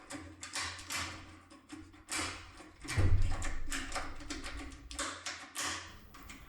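Foil impressioning lockpick being swung back and forth inside a lock cylinder: a run of quick metallic clicks and rattling, louder for a couple of seconds in the middle.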